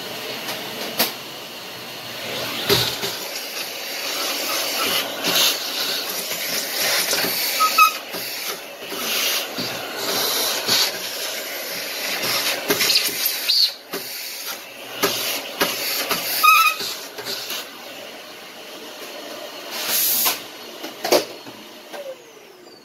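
Electric dust-cleaning machine running in uneven bursts, with a loud rush of air as it clears dust from inside the satellite receiver's chassis. A few sharp clicks and knocks come through it.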